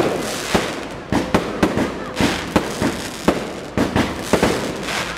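Aerial fireworks shells bursting in quick succession, about three sharp bangs a second, over a continuous noisy wash between them.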